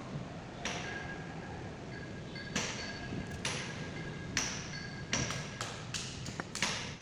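Steel parts of a dismantled steering tie rod end (ball stud, housing and arm) clicking and knocking together as they are handled and set down on the bench. It is a series of sharp clicks, some with a short metallic ring, coming faster over the last couple of seconds.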